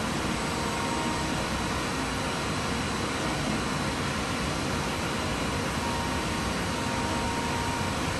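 DMG Mori Seiki HSC 20 Linear high-speed machining center running with coolant spraying inside its enclosure: a steady, even hiss with a thin steady whine above it.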